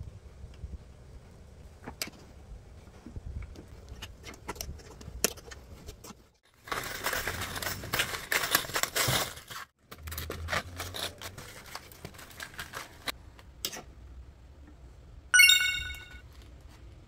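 Plastic blister packs of nails being handled: scattered clicks and taps, then a few seconds of crinkling, rattling plastic midway. Near the end comes one short, bright chime, the loudest sound here, an added sound effect.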